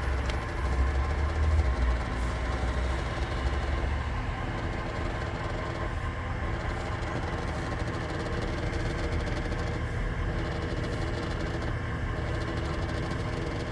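Fujitsu General AOYG09LUCB mini-split outdoor unit running with a steady low hum made of several even tones, its deep rumble heavier for the first few seconds and then easing; a noise the owner finds annoying.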